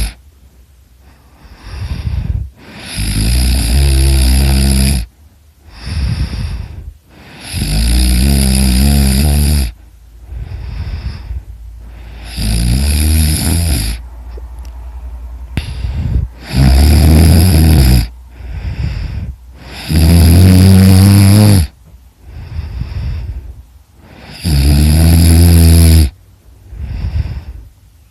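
A person snoring heavily in sleep: a loud, deep snore about every four seconds, each lasting a second or two, with a quieter breath between them.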